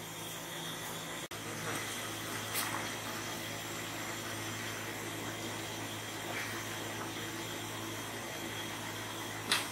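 Large pot of soup simmering on the heat: a steady bubbling hiss over a low hum, with faint soft rustles as handfuls of sliced ugwu (pumpkin) leaves are dropped in. The sound cuts out for an instant about a second in.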